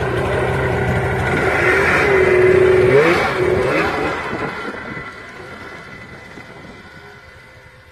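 Arctic Cat snowmobile engine revving as the sled pulls away through snow, the pitch rising twice, loudest about two to three seconds in, then fading steadily as it drives off.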